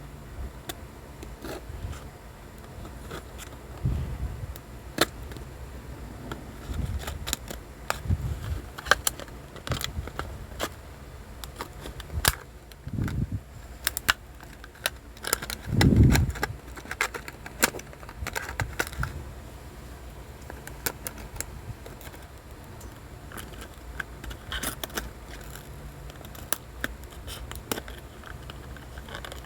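Hands opening and handling a toy's plastic and cardboard packaging: scattered sharp clicks and crinkles throughout, with a few dull thumps, the loudest about sixteen seconds in.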